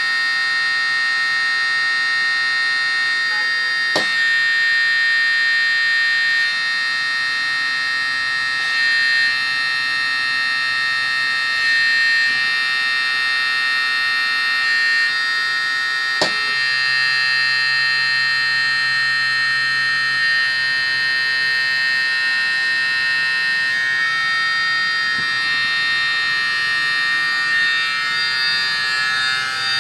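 Small electric hydraulic pump of a scratch-built RC excavator running with a steady high-pitched whine, its tone changing a little at times as the boom and stick cylinders move. Two sharp clicks, about four seconds in and again about twelve seconds later.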